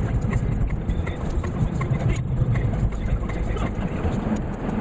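Engine and tyre noise of a Lexus IS heard from inside its cabin while driving on snow-covered roads, a steady low rumble.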